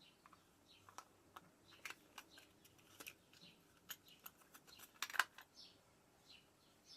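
A scatter of light clicks and taps at an irregular pace, the loudest cluster about five seconds in, with faint bird chirps in the background.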